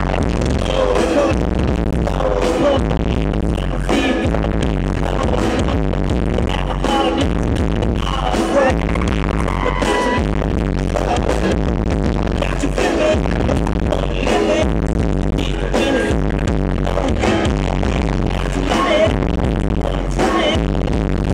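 Live band music with vocals: a loud, bass-heavy pop/hip-hop song played through a concert sound system, recorded from the crowd with poor, muddy sound quality.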